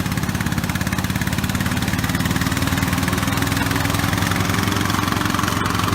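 Riding lawn mower's small engine running steadily at an even speed.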